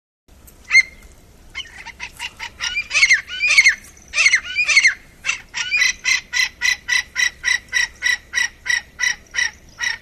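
Swamp francolin calling: a few scattered notes, then loud notes that fall in pitch, then a steady run of short, evenly spaced calls about four a second.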